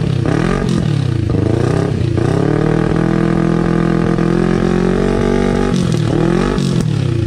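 CFMoto NK400 parallel-twin engine revved in neutral through an aftermarket slip-on muffler: a few quick throttle blips, then a rev held steady for about three seconds, then more blips dropping back near the end.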